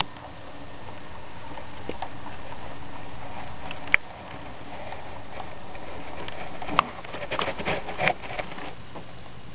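HO scale model boxcars rolling along the track, their small metal wheels clicking sharply over rail joints, with a steady rolling noise underneath. Single clicks come at the start, about four seconds in and near seven seconds, followed by a quick run of clicks.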